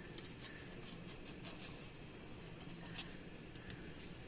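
Faint scratching and light ticks of a kitchen knife and hands working a stack of thin pastry sheets on a marble counter, with one sharper tick about three seconds in.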